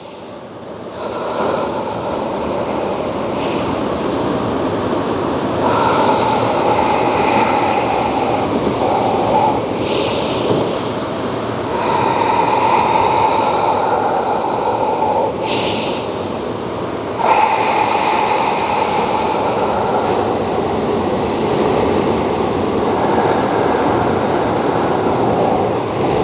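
Slow, long, deep breathing close to the microphone, about four drawn-out breaths roughly five to six seconds apart, over a steady rushing noise.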